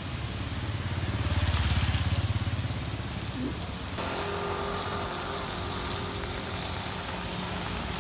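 A motor vehicle passing on a wet street: a low engine rumble swells and fades about two seconds in, over the steady hiss of rain and wet road. About four seconds in the background changes abruptly to steady street noise.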